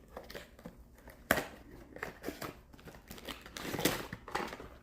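Blind-box packaging being handled and opened: light crinkling and rustling of cardboard and plastic, with a sharp click about a second and a half in and busier rustling near the end.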